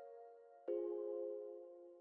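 Background music: a held chord fading out, then a new chord struck about two-thirds of a second in and slowly dying away.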